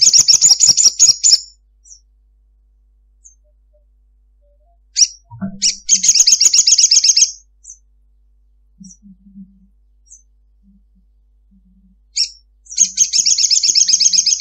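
Male olive-backed sunbird giving a long, fast chattering trill three times: at the start, about six seconds in and near the end, each burst about a second and a half long and led in by a few sharp chips.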